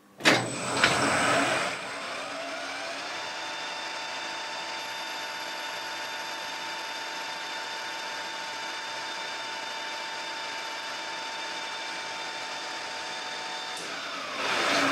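Colchester metal lathe switched on with a click, the spindle running up to speed in about a second and a half, then running steadily with a fixed multi-tone hum while a CZ121 brass pad is turned. Near the end it is shut down, with a brief louder rush as the spindle slows.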